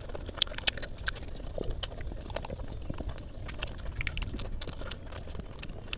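Close-miked chewing of a steamed momo dumpling, heard as an irregular run of short, sharp wet mouth clicks.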